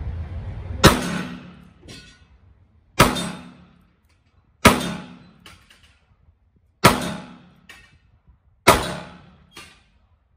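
Five shots from a Smith & Wesson Model 10 .38 Special revolver fired double action, about two seconds apart, each a sharp crack with a brief fading echo. A fainter sharp knock follows most shots about a second later.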